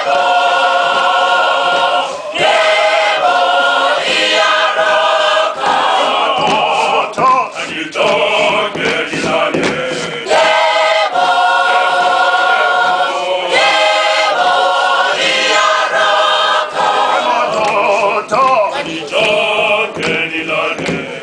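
Children's and teenagers' choir singing together in sung phrases with short breaks between them.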